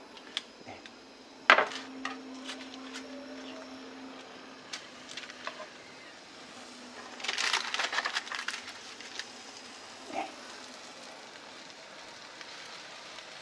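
Metal tongs clicking against a frying pan as pieces of grilled eel are laid in, with a sharp knock about a second and a half in and a short burst of crackling sizzle midway as the fish meets the hot pan. A faint steady hum runs under the first half.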